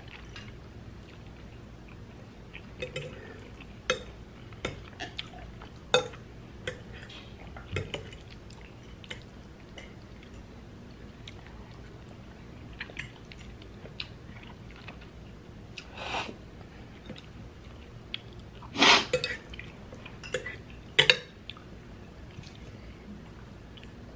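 Close-up eating sounds of spaghetti: chewing and wet mouth noises as noodles are sucked in, heard as scattered short sounds. A few louder ones come about two-thirds of the way through.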